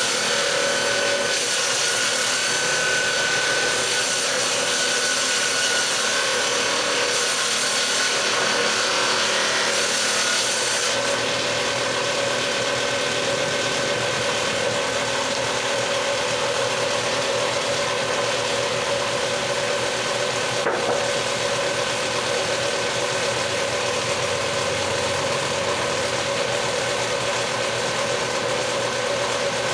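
Electric woodworking power tool running steadily while cutting wood: a continuous motor whine with a loud cutting hiss that eases off about eleven seconds in.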